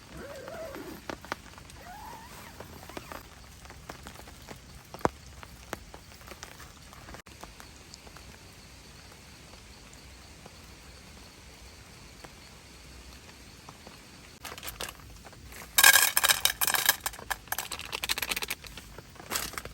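Faint steady rain patter with scattered small ticks, then, about three-quarters of the way through, a loud crinkling rustle lasting a few seconds, as of plastic packaging or shelter fabric being handled.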